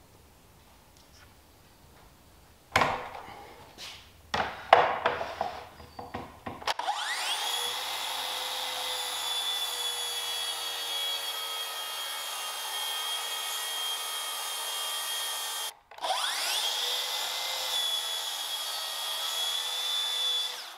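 A few knocks, then a Makita plunge track saw whines up to speed and runs steadily, cutting 3/4-inch maple plywood along its guide rail. Its sound cuts off abruptly, then the saw spins up and runs again.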